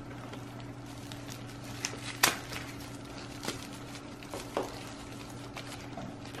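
Sparse crackles and light taps as hands handle an orchid's root ball, loose bark potting mix crumbling and dropping onto a plastic sheet; the sharpest tap comes a little past two seconds in.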